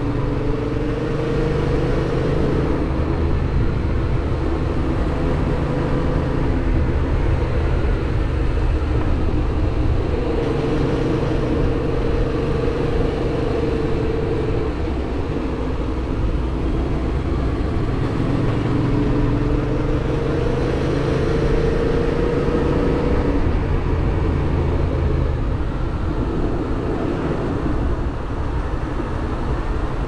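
Yamaha MT-07's parallel-twin engine running at a steady cruise, its pitch drifting slowly up and down with small throttle changes, under steady wind noise.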